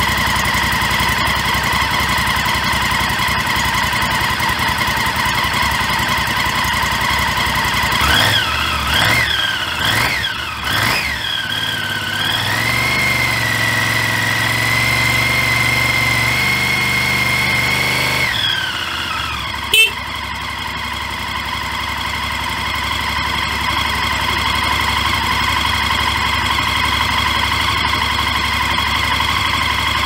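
Honda VTR1000F Firestorm's 996 cc 90-degree V-twin, just started from cold, idles through its original exhaust. About eight seconds in it is blipped a few times, then held at higher revs for about six seconds before dropping back to idle. A single sharp crack comes just after the revs fall, and then the engine idles steadily again.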